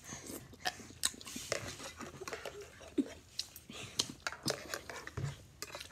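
A person eating ramen noodles off a fork: soft slurping and chewing, with scattered light clicks and scrapes of the fork in the pan.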